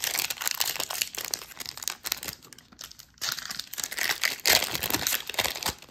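Plastic wrapper of a trading-card pack crinkling as it is torn open and the cards are worked out of it, in two bouts of crackling with a short lull a little past the middle.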